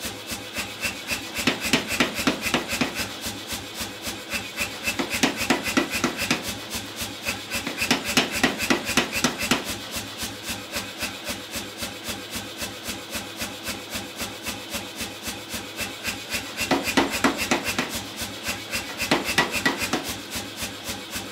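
Power hammer striking a hot round steel bar between its flat dies in rapid, even blows, several a second, squaring up the round stock.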